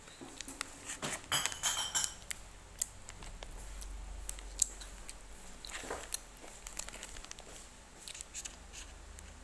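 Plastic snack wrapper crinkling and rustling in the hands: a dense flurry of crackles a second or so in, then scattered clicks and taps.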